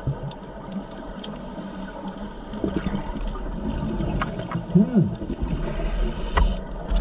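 Underwater sound of scuba divers breathing through their regulators: a steady low rumble and gurgle of exhaled bubbles, with scattered short clicks and a brief hiss near the end.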